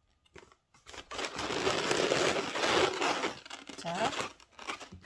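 Latex modelling balloons rubbing against each other and against the hands as a balloon fish is handled and adjusted. A dense squeaky rubbing noise lasts about two and a half seconds and dies away near the end.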